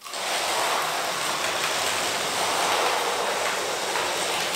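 Several slot cars racing around the track together: a steady, even whirr of small electric motors and guide pickups running in the slots, starting suddenly.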